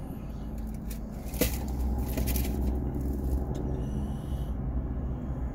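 Steady low rumble with light scraping and handling noises, and a sharp click about one and a half seconds in.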